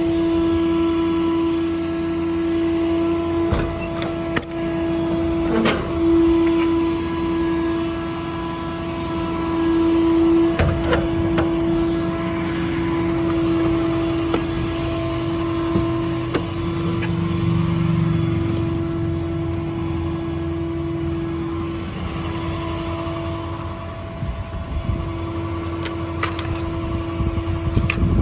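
Truck diesel engine running at a steady idle with a constant hum, broken by sharp clicks and clunks as compartment door latches and a cab door handle are worked.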